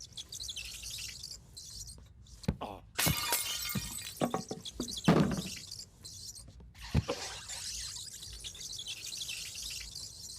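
Cartoon sound effects without dialogue: several sharp crashes and knocks, the loudest about halfway through, over a steady hiss.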